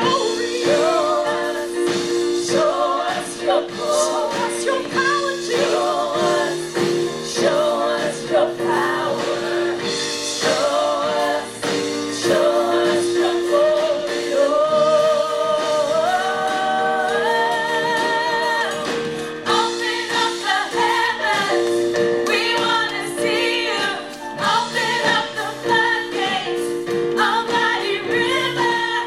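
Worship song with singing voices over steady held accompaniment chords; one sung line climbs in steps and is held, about midway.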